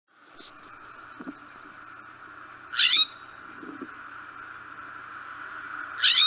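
California scrub jay giving two loud, harsh, raspy calls about three seconds apart, over a steady background hiss.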